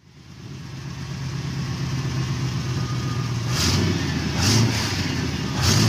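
A 4x4's engine running with a steady low hum, then three louder surges with a hiss, roughly a second apart, in the second half.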